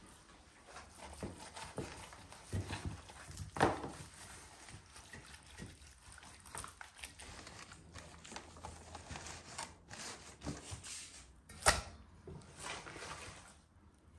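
Gloved hands working marinade into raw whole chickens on a metal tray: wet squelching and slapping of the meat, broken by scattered knocks, with two sharp ones about four seconds in and near the end.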